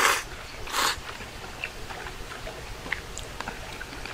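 Udon noodles slurped from a bowl: a slurp cutting off right at the start and a second short slurp just under a second in. Then soft chewing with faint scattered clicks.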